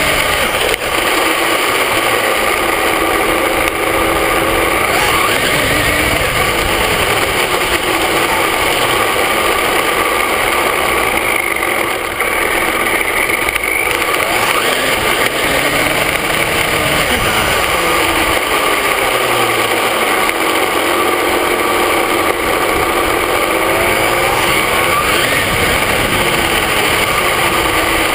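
Onboard an HPI Mini Trophy RC truck with a Traxxas VXL-3s brushless system: the motor and drivetrain whine rises and falls again and again as the truck speeds up and slows down, over loud, steady tyre and road noise.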